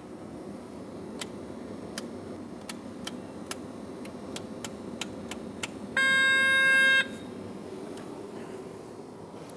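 A series of about a dozen sharp clicks from the cab controls of a Cat 140M2 motor grader as its lights are switched on, followed a second later by one loud, steady electronic beep lasting about a second. A steady low hum runs underneath.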